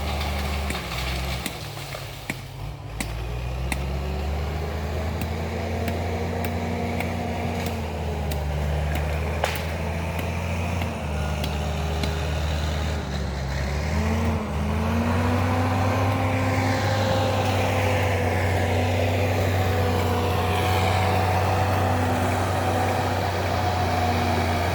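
Tractor engine running steadily, its pitch dropping about two seconds in, then climbing and holding higher from about fourteen seconds in as the engine speeds up.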